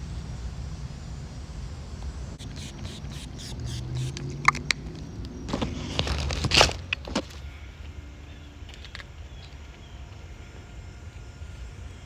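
Outdoor traffic ambience: a steady low rumble with a vehicle going by, and a run of clicks and knocks a little past the middle.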